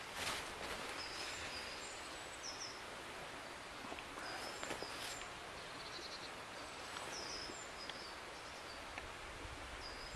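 Small birds calling with short, high chirps repeated many times over a steady outdoor hiss, with a few brief rustles and clicks.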